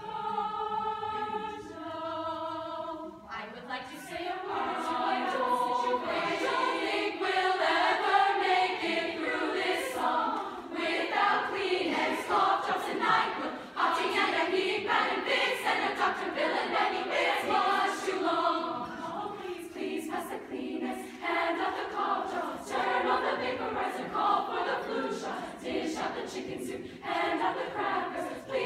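Girls' choir singing: the voices hold a steady chord for about the first three seconds, change chord once, then move into the moving, worded part of the song.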